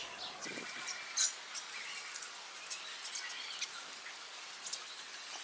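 Small birds chirping: many short, high chirps and squeaks scattered irregularly, some faint.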